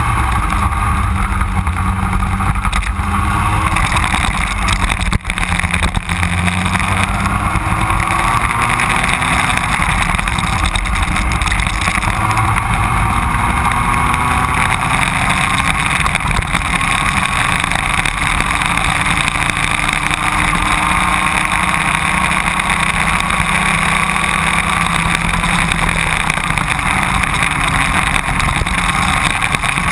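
Racing kart engine running at high revs, heard onboard; its pitch slowly climbs and drops again as the kart accelerates and slows through the corners.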